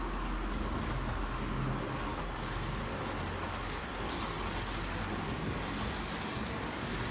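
Model train of tank wagons rolling past behind a model BLS Re 465 electric locomotive: a steady rolling noise of small wheels on the layout track, with a low hum.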